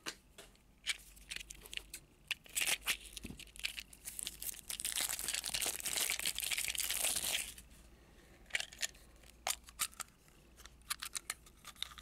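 A mystery toy package being torn open by hand: scattered crinkles and small clicks, then a long tear about four seconds in lasting around three seconds, followed by more crinkling and light clicks of handling.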